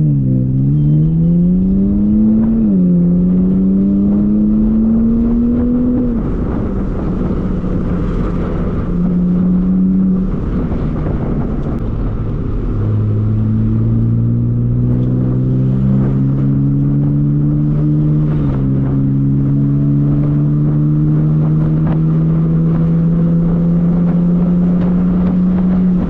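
BMW Z4 roadster engine accelerating through the gears, with heard from the open-top cabin. Its pitch climbs and falls back at each upshift, about 3 and 6 seconds in, then rises slowly while cruising with another upshift past the middle. Wind and road noise rush underneath.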